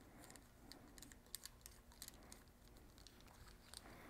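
Near silence with faint, irregular small clicks and rustles: a rope being worked through a metal descent device clipped to a climbing harness.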